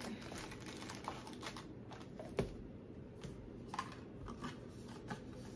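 Cardboard boxes and paper packaging being handled and closed: light scattered clicks, taps and rustles, with a sharper knock about two and a half seconds in.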